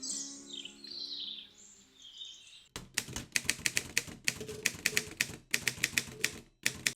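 Birds chirping over gentle music, which stops a little under three seconds in. Then a typewriter clacks in rapid runs of keystrokes, several a second, and cuts off abruptly near the end.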